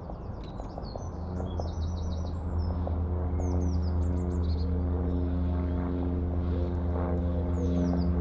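A steady engine drone that grows louder after about a second, with small birds chirping in short, rapid runs of notes over it.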